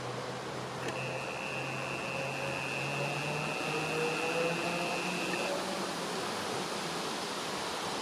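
Camera's zoom motor giving a steady high whine as the superzoom lens zooms in, starting with a click about a second in and stopping about five and a half seconds in. Under it, a steady rushing background noise and a faint low hum.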